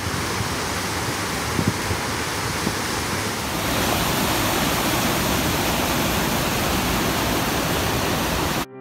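Flood water spilling over the Burdekin Falls Dam's concrete spillway and rushing through rocky channels below: a steady, loud rush of white water, growing louder about a third of the way in.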